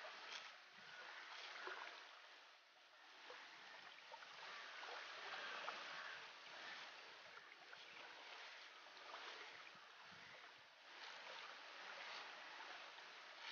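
Faint, crisp cuts and scrapes of an onion being sliced against a boti's curved steel blade, a few small ticks over a steady soft hiss.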